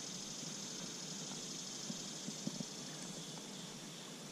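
Quiet, steady high-pitched hiss of outdoor ambience, with a few faint soft ticks in the second half.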